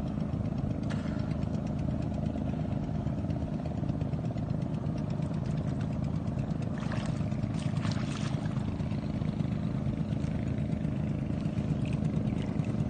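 Motorized bangka's engine running steadily, with a few splashes of water about seven and eight seconds in.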